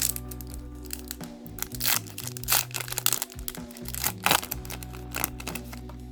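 Crinkling and tearing of a Yu-Gi-Oh booster pack's foil wrapper as it is opened, in a string of short crackles, over steady background music.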